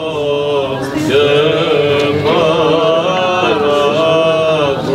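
Slow chanted singing: a held, gently moving melody over a steady low drone.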